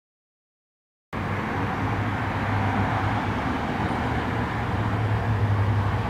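Steady low rumble of a twin-engine jet airliner flying high overhead, starting abruptly about a second in.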